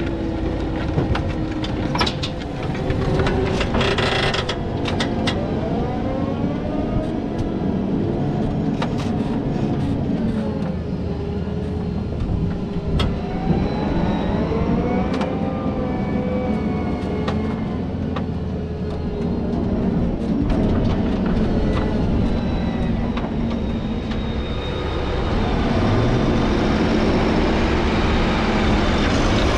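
Grimme GL 32B potato planter working behind a Fendt 828 Vario tractor: steady machinery running with scattered clicks and knocks and tones that slide up and down in pitch. The sound grows louder and rougher near the end.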